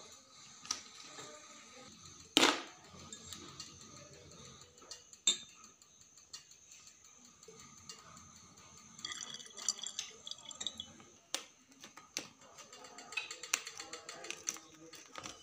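Glassware being handled: a drinking glass clinks and knocks against glass and the tabletop several times, the loudest knock about two and a half seconds in. Clear distilled liquid is then poured from the glass into a bottle, briefly, about nine to eleven seconds in.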